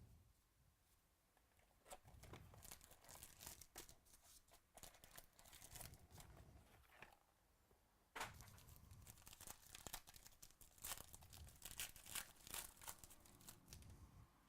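Faint tearing and crinkling of a trading-card pack wrapper being ripped open and handled, in two spells of irregular rustling, the second starting with a sharper rip about eight seconds in.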